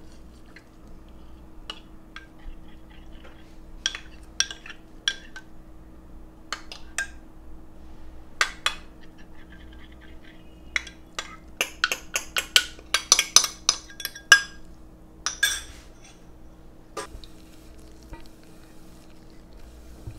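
Metal measuring spoon clinking and scraping against a glass bowl and the rim of a stainless steel mixing bowl, in scattered clinks that turn into a quick run of many clinks in the second half.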